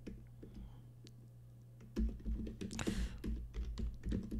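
Typing on a computer keyboard: a few scattered key clicks at first, then a quick run of keystrokes from about two seconds in, over a low steady hum.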